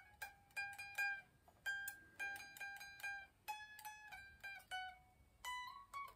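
Epiphone Les Paul Modern Figured electric guitar: single notes picked one at a time high up the neck, about three a second with a couple of short pauses. The upper frets are being tried for playability and fret buzz.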